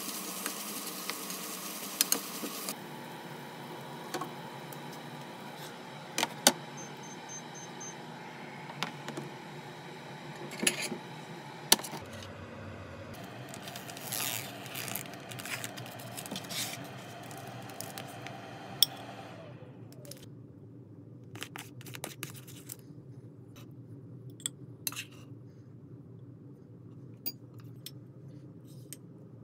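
Stir-fry sizzling in a pan while it is stirred with a wooden spatula, cutting off about three seconds in. Then kitchen handling sounds over a steady hum: scattered sharp clicks and knocks, and a stretch of crinkling as the plastic film is peeled off an instant rice tray, as the food is plated on a ceramic plate.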